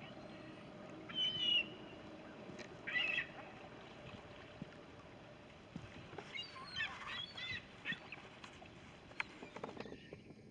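Ducks and Canada geese calling on the river: two short calls about a second and three seconds in, then a cluster of calls between six and eight seconds, over a steady outdoor background.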